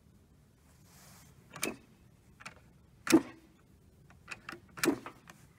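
Bolt of an Mle 1866 Chassepot rifle being worked by hand: a handful of sharp clicks and clacks, the loudest about three seconds in.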